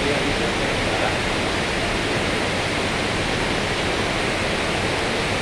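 Water rushing steadily through the filter beds of a water treatment plant, heard as an even, unbroken hiss.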